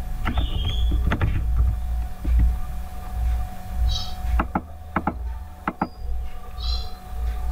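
Sharp computer keyboard and mouse clicks: a file name being typed, then a click on a Save button. Under them runs a steady low rumble, and short high chirps come three times.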